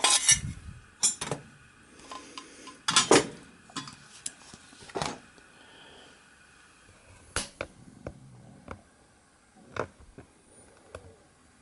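Scattered light clicks and knocks of things being handled on a workbench, a dozen or so separate taps with short quiet gaps between.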